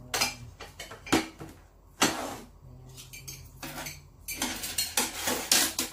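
Tableware clattering: plates, metal serving tongs and chopsticks knocking and clinking on a tabletop as food is served, in a string of separate knocks that come thickest near the end.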